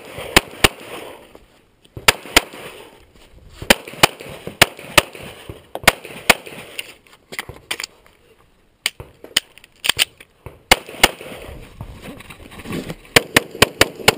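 Glock 35 pistol in .40 S&W firing rapidly during a USPSA stage run. The shots come in quick pairs and short strings, with pauses of about a second between the groups.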